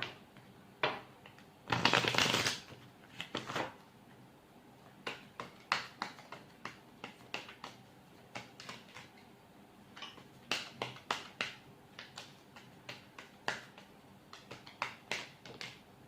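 A deck of tarot cards being shuffled. A dense riffle about two seconds in is followed by a long run of short, sharp card snaps and flicks, several a second.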